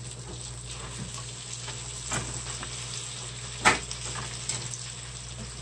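Baby spinach sizzling as it stir-fries in a skillet, a steady hiss, while metal tongs turn the leaves. The tongs knock against the pan now and then, with one sharp clack a little past halfway that is the loudest sound.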